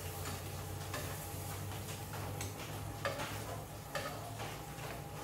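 Cheese toastie frying in a pan, with crispy grated cheese sizzling around it, while a metal fork scrapes and taps against the pan a few times to work the crunchy cheese bits loose.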